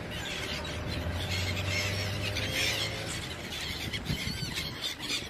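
Many birds chirping and calling over a steady low rumble. A low steady hum underneath stops about halfway through.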